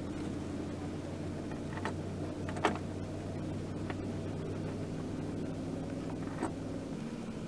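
Steady rush of wind and water aboard a small sailboat under sail, with a low steady hum underneath and a few short, sharp clicks.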